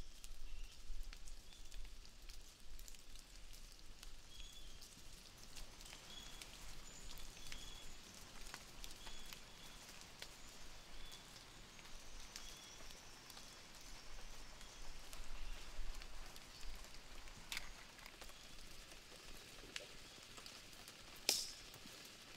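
Rainforest ambience: short high chirps repeating about every second over scattered small ticks. Two sharp clicks come near the end, the second the loudest sound.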